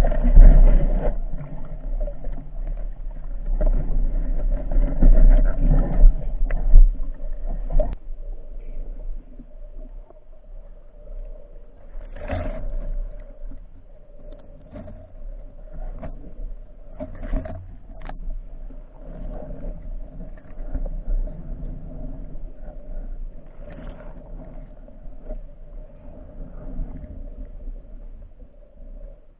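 Muffled water noise heard through an underwater camera: loud low rushing and sloshing for the first several seconds, then a quieter steady hum broken by a few short knocks.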